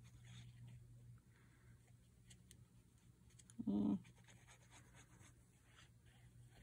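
Faint handling of paper envelopes and a glue bottle, soft scratches and light taps as glue is put on the flaps of a paper hinge. A brief voiced sound, about a third of a second long, comes about midway.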